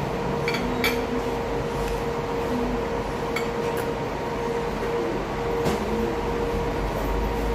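Metal fork clinking against a plate a few times in short, sharp ticks, over a steady background hum.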